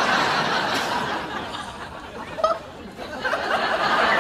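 Sitcom studio audience laughing; the laughter dies down around the middle and swells again over the last second or so.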